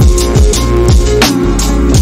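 Background music with a steady electronic beat: deep bass drum hits that drop in pitch, sharp drum strokes and sustained synth tones.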